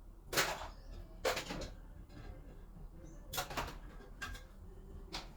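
About five separate clacks and knocks of hair-product bottles being picked up and set down into a basin, spaced a second or so apart.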